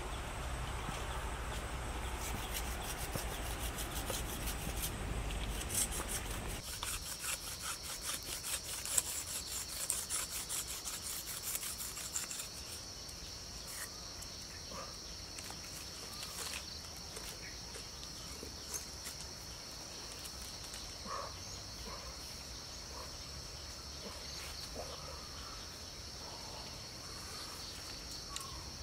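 Dry wild vine strands rustling and scraping as they are handled and split by hand, with a dense run of quick scraping clicks from about a quarter of the way in to nearly halfway. A steady high insect drone comes in about a quarter of the way in and carries on.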